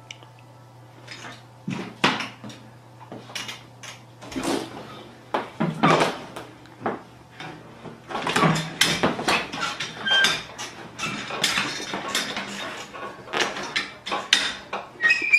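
Office chair being torn apart and knocked about by a tiger cub: irregular clatter, knocks and scraping of the chair's plastic and metal parts, with tearing of its padding, growing busier in the second half.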